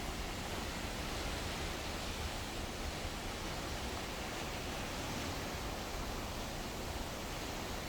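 Sea water rushing, a steady even noise without separate wave surges.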